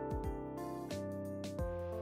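Background music: a soft pop track with held chords over a steady beat of deep kick-drum thumps and crisp snare hits.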